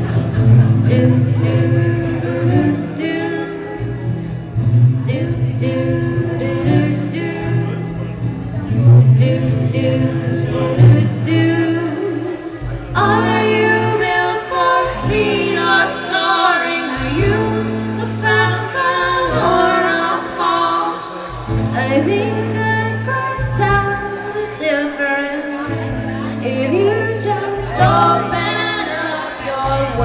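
A live band playing a song, with several voices singing over bass and drums. The vocals get fuller and louder about halfway through.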